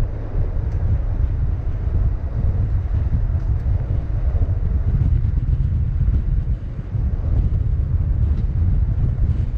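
Steady low rumble of a vehicle driving fast on a dirt road, heard through an action camera mounted outside on the hood, with wind buffeting the microphone.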